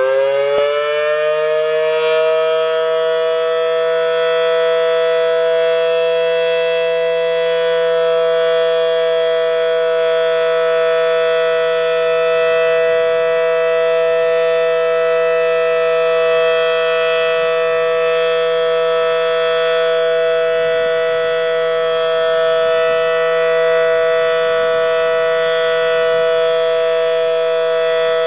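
Federal Signal Model 7T outdoor warning siren sounding the steady Alert signal: a loud, unwavering two-note chord held at full pitch, as used for siren tests and tornado warnings.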